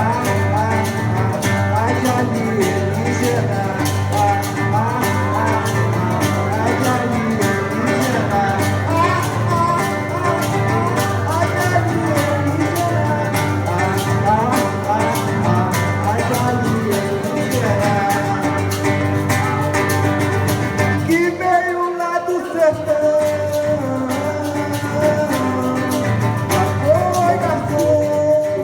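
Live acoustic Brazilian music: a violão (nylon-string acoustic guitar) played with a steady rhythm, with a wavering sung melody over it. A little past two-thirds of the way in, the low end drops out for a moment before the playing resumes.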